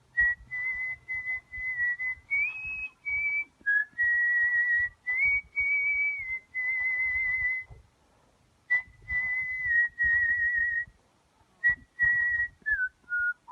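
Solo artistic mouth whistling of a melody: clear held notes with a slight vibrato, in phrases broken by short pauses, stepping down through a few falling notes near the end.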